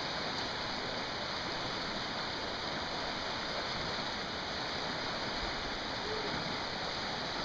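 Muddy creek in flood rushing steadily, with floodwater breaking around a wader's legs.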